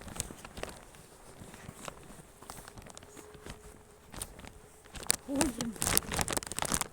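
Walking footsteps crunching in snow, coming thicker and louder in the last couple of seconds, with one short low hooting sound about five seconds in.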